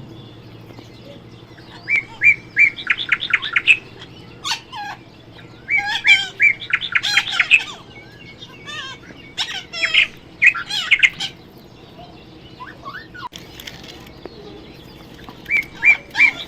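Parrot chirping in quick runs of short, high calls, in bouts a few seconds apart, with a few calls between them that slide down in pitch.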